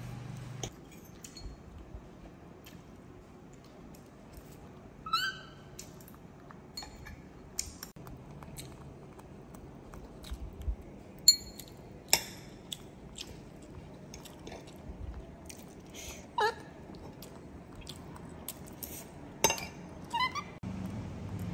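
Scattered light clinks and taps of tableware during a meal, with a few brief, high squeaks from a baby monkey.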